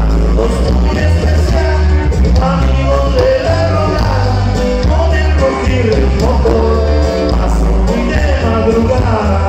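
A live band playing loud amplified music, with a singer and a bass line moving in steps underneath.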